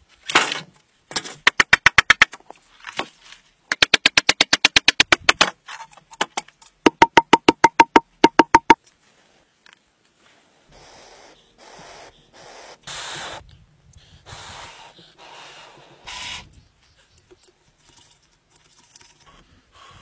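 Three bursts of rapid, evenly spaced clicks, about ten a second, then a series of short scraping strokes: a knife blade shaving a bamboo tube.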